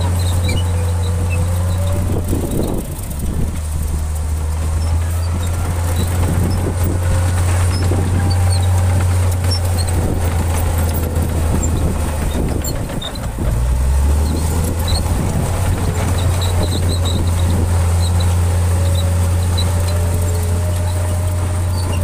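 Shantui crawler bulldozer's diesel engine running under load as it pushes soil, a steady deep drone whose note rises and falls gently, with a brief dip about 13 seconds in.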